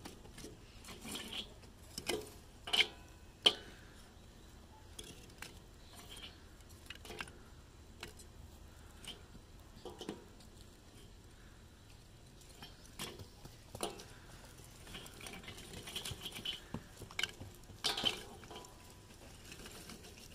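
Irregular clinks and knocks of kitchen utensils and dishes being handled, with a few louder knocks about two to three seconds in and again near the end.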